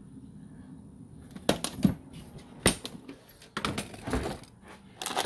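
Clicks, knocks and rattles of small bolts and hardware being handled in a plastic compartment bolt organizer. After a quiet second and a half come a few sharp knocks, then a burst of clattering about four seconds in.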